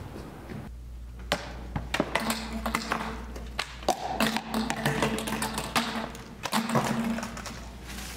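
Irregular sharp taps and knocks, starting about a second in, with a low steady tone that comes and goes.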